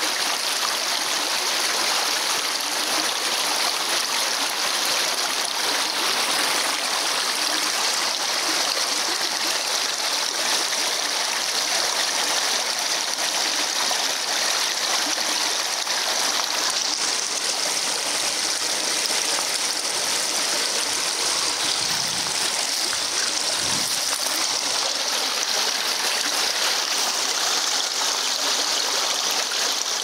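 Small, shallow forest stream flowing over stones: a steady, even rush of water.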